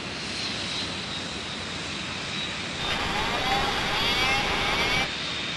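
Boeing 737-400 cockpit aural warning siren sounding for about two seconds, starting about three seconds in, a warbling tone over steady flight-deck and engine noise on the cockpit recording.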